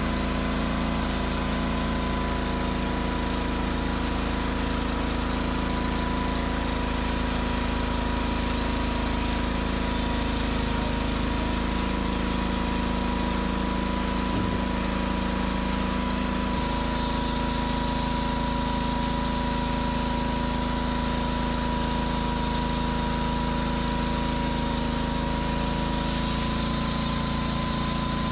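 Small gasoline engine running steadily at a constant speed, with a thin steady whine over it.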